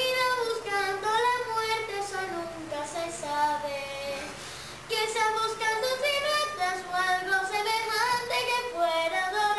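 A child singing a melody without accompaniment, with long held notes that glide between pitches.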